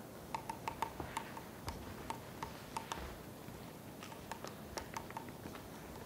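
Eurasian three-toed woodpecker pecking at a tree trunk: irregular sharp taps of its bill on the wood, about four a second, with a short lull about halfway through.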